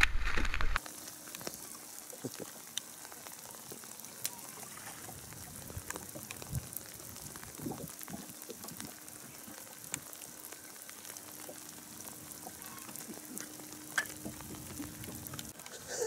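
A brief loud burst from the boat scene cuts off within the first second. Then comes quiet riverside ambience: a faint, steady hiss with scattered soft ticks, and a faint, steady low hum from about seven seconds in until just before the end.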